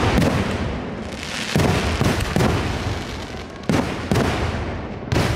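Aerial firework shells bursting overhead: a series of loud booms, about one every second or so, some in quick pairs, each trailing off in crackle and echo.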